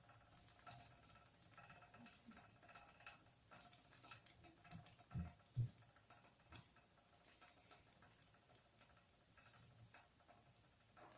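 Spin bike flywheel spinning, faint, with light irregular ticking and a faint steady whine, and two dull knocks about five seconds in.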